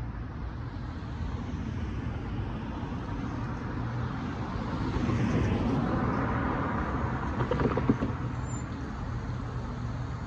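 A car driving past close by, its tyre and engine noise swelling and then fading, over a steady low traffic rumble; a single sharp knock comes about eight seconds in.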